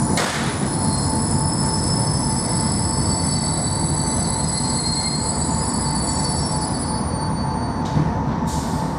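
Running noise heard inside a ČD class 460 electric multiple unit at speed: a steady rumble of wheels on rail with a thin steady whine over it. A short rush of noise just after the start is the tail of a freight train passing on the next track, and there is a knock near the end.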